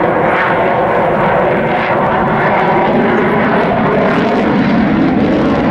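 Engine noise of a fixed-wing display aircraft flying overhead, a loud steady drone.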